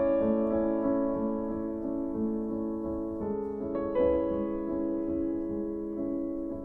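Background piano music: slow held chords, with new chords struck a little over three seconds in and again about a second later.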